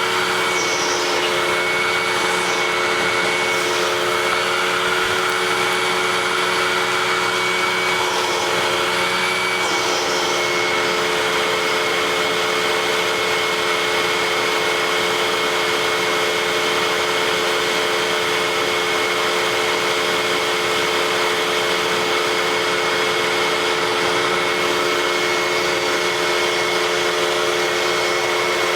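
Vacuum cleaner motor running steadily at a constant pitch, with a few brief higher-pitched sounds in the first ten seconds.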